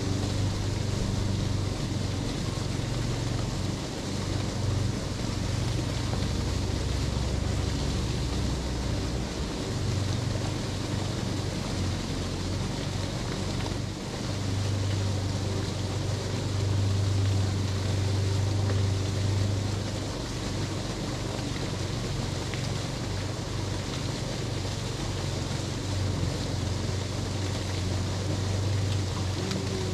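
Low, steady engine hum that swells and fades every few seconds, over a constant outdoor hiss.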